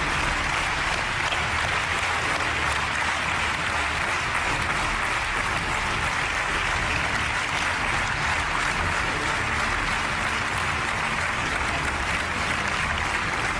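A large studio audience applauding: dense, steady clapping that does not let up.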